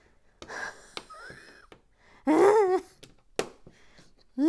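A person's wordless, exasperated vocal noises while fixing a building mistake: a breathy sigh, a short rising-and-falling hum, then two loud groans. A single sharp click of plastic Lego bricks falls between the groans.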